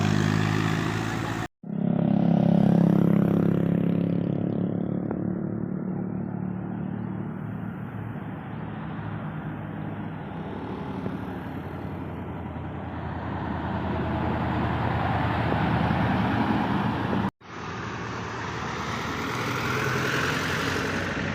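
Bus engine running with road noise, a low steady drone that is loudest a couple of seconds in and then eases off; the sound drops out abruptly for an instant twice.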